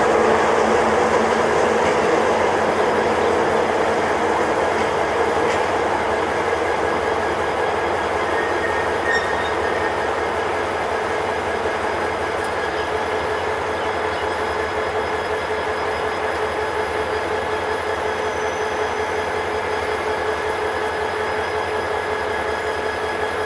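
Broad-gauge LHB passenger coaches rolling slowly over curved track, a continuous wheel-on-rail rumble carrying a steady high squeal from the wheels on the curve. The sound slowly fades as the rear of the train passes.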